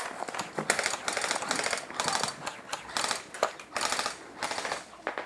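Airsoft electric rifle firing on full auto in several short bursts of rapid clicking pops.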